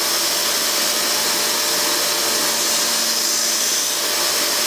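Central Machinery 1x30-inch belt sander running together with a shop vac drawing dust from its port: a loud, steady rushing noise with a faint steady hum underneath.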